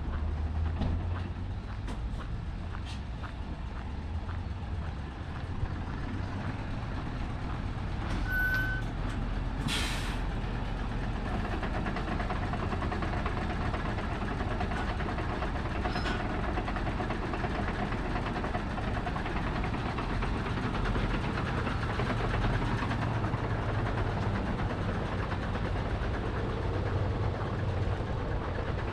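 Diesel engine of a curtain-sided truck running close by. A short beep comes about eight seconds in, followed at once by a sharp hiss of air from its air brakes.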